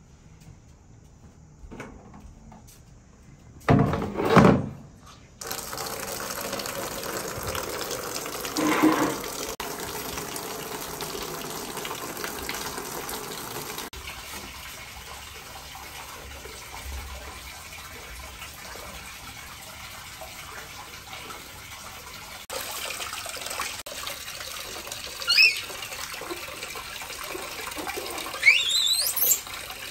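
Wall tap running into a red plastic basin, filling it with a steady splashing of water; the water starts about five seconds in, just after two loud thumps. Near the end come a few short, high, rising squeaks.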